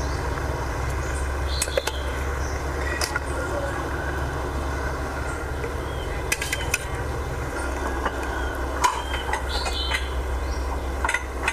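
Metal ladle and chopsticks clinking against a steel pot and a plate as pieces of eel are lifted out, a few scattered clinks over a steady low hum.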